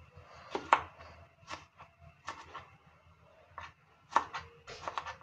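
Kitchen knife slicing tomatoes on a plastic chopping board: a dozen or so irregular sharp taps as the blade meets the board.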